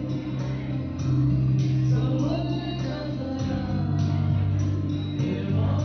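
A male singer singing live into a microphone over amplified backing music with a steady beat, heard through the sound system in a large dining hall.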